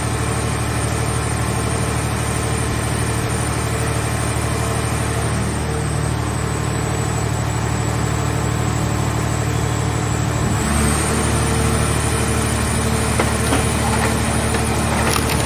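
Scrap car-shell baler machine's power unit running steadily, a low mechanical hum with a thin high whine. About two thirds of the way through the hum and whine shift in pitch, and a few knocks come near the end.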